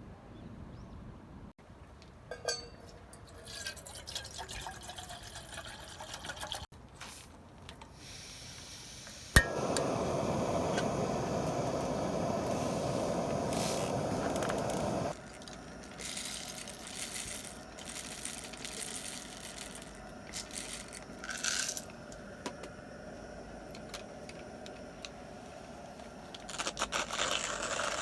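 Water being poured into a pot or kettle, a loud even rushing that starts sharply about a third of the way in and stops suddenly some six seconds later, with light clinks of cookware around it.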